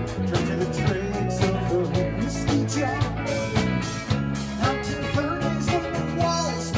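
Live rock band playing: two electric guitars, electric bass, drum kit and keyboard, with a steady drum beat under the guitar lines.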